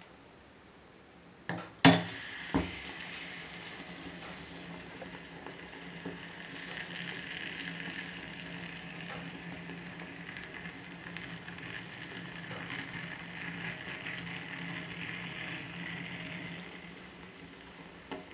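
A red-hot metal ball is set down with a few sharp knocks about two seconds in, then sizzles steadily on whatever it is resting on, fading out near the end.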